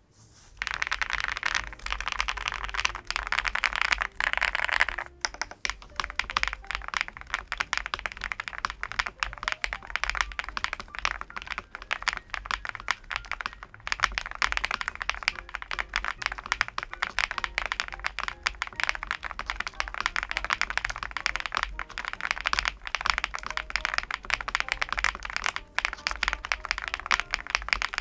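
MonsGeek M2 V5 VIA aluminium-cased, gasket-mounted mechanical keyboard being typed on quickly and continuously, keystrokes clacking in a dense stream.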